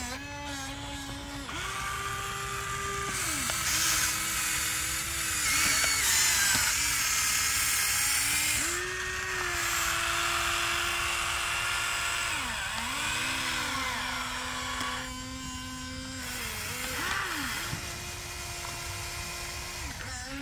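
Electric motors of a Huina remote-control toy excavator whining as the boom, arm and bucket move, the pitch holding steady and then stepping or sliding to a new note each time a movement starts, stops or changes.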